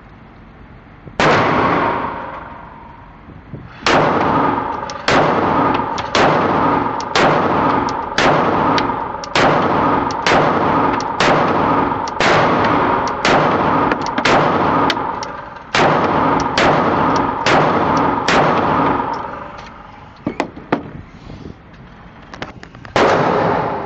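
Glock 19 Gen 4 9mm pistol fired in a string: one shot, a pause of a few seconds, then a long run of shots about two a second, a few faint cracks, and one last shot near the end. Each shot rings on with echo.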